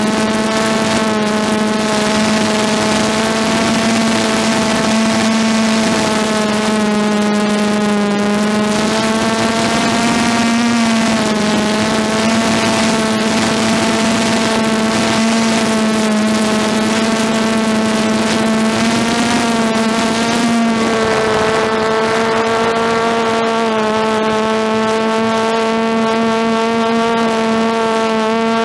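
DJI F330 quadcopter's brushless motors and propellers humming steadily in flight, heard close up from the onboard camera. The pitch wavers slightly with throttle and shifts once about two-thirds of the way through, over a rushing hiss.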